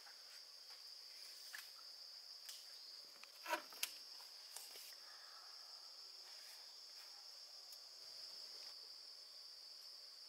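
Insects trilling steadily in one unbroken high drone, with two short knocks about three and a half seconds in.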